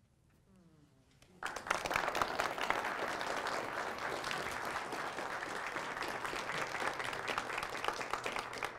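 Small audience applauding. The clapping starts suddenly about a second and a half in after a brief hush, then holds steady.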